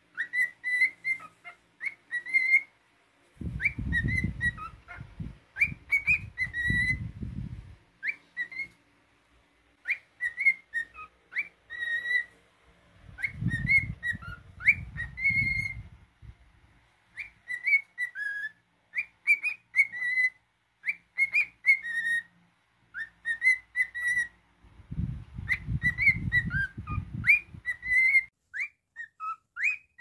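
Cockatiel whistling a learned tune in phrases of short, quick, slurred notes around one pitch, with brief pauses between phrases. Low rumbling noise comes in three times beneath the whistling.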